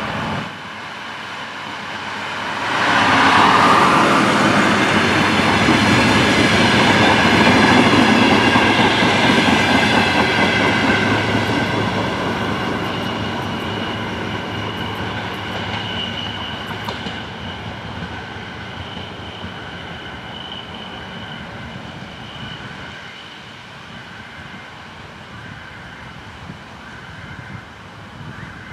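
Diesel multiple unit DR1A passing close by, getting loud about three seconds in and staying loud for several seconds before slowly fading away. As it fades, a thin high ringing tone comes through.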